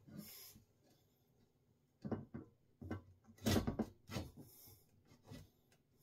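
Seat post being pushed and twisted down into a bicycle frame's seat tube: a series of short scraping rubs and knocks, the loudest about three and a half seconds in.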